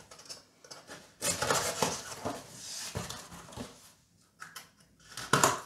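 A taped cardboard shipping parcel being opened by hand: rustling and scraping of cardboard and packing tape in irregular bursts, the longest starting about a second in and a short one near the end.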